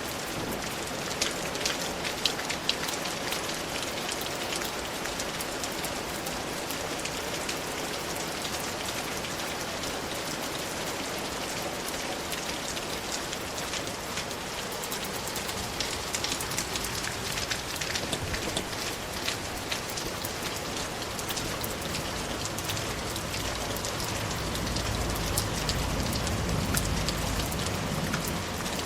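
Steady rainfall, an even hiss with scattered sharp drip and drop ticks. A low rumble swells in underneath for a few seconds near the end.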